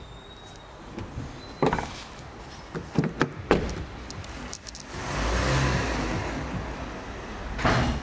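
Car door handling: a few sharp clicks and knocks, then a rumbling noise lasting a couple of seconds, ending in a thump near the end.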